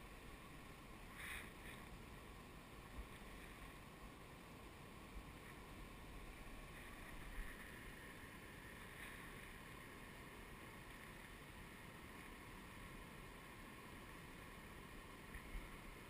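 Faint, steady rush of a nearby small waterfall on the river, with a few brief splashes as a chub is held in the water and released.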